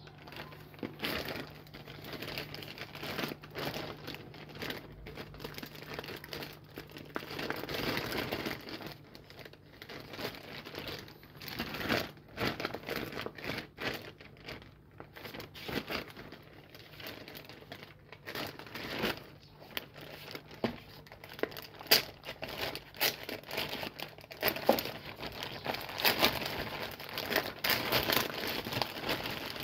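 Thin plastic courier mailer bag crinkling and crackling as it is handled by hand and torn open, with irregular sharp crackles.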